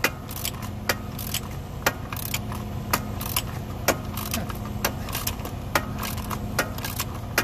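Ratchet wrench clicking in a steady rhythm, about two strokes a second, as a nut on a truck air-spring (airbag) mount is run down. A steady low hum runs underneath.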